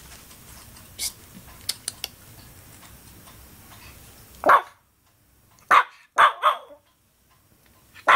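Shih tzu puppy barking: about five short, sharp yaps, starting about halfway through, with two of them coming in quick succession. A few light clicks come before the barking.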